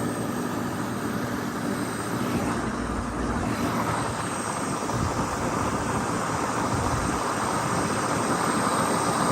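Sonalika RX 60 tractor's diesel engine running steadily while the tractor is driven along, with road and wind noise, slowly getting louder toward the end.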